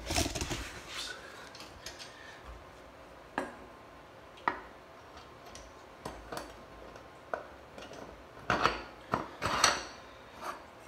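Metal parts clinking and knocking at a mini bike's front wheel hub as the brake drum, washer and wheel are handled and lined up between the forks: scattered single clinks, then a quick cluster of louder ones near the end.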